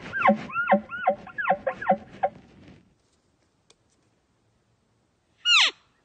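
Elk cow calls: a quick string of short, chirping mews, about three a second, that stops a little over two seconds in; after a pause, one high mew slides steeply down in pitch near the end.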